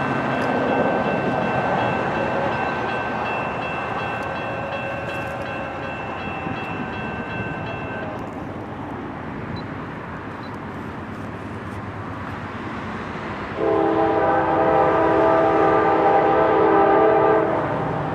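Freight train running with a steady locomotive rumble and rail noise. About three-quarters of the way in, the locomotive's air horn sounds one loud chord lasting about four seconds.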